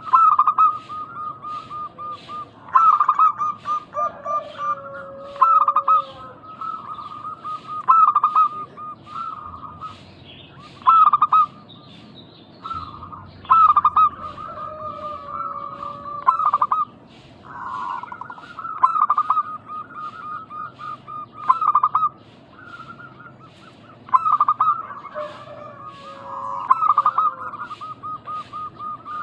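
Zebra dove cooing: runs of quick stuttering coos repeated every two seconds or so, now and then with a lower, drawn-out sliding note.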